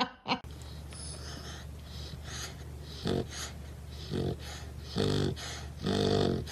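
Sleeping Dalmatian puppy snoring, with a snore about once a second that grows stronger in the second half, over a low steady hum.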